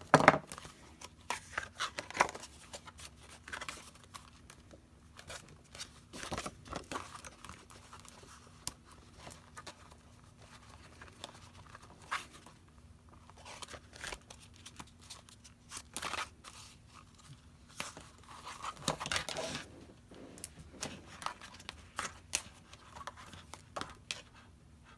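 Paper pages and a metal double-loop wire binding being handled and flipped on a small spiral-bound notebook: scattered rustles and light clicks against a hard tabletop, with a sharp click right at the start and a busier stretch of handling about three quarters of the way through.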